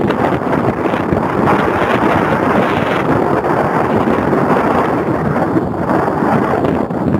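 Typhoon wind blowing hard across the phone's microphone, a loud, steady rushing noise with breaking surf from the rough sea mixed in.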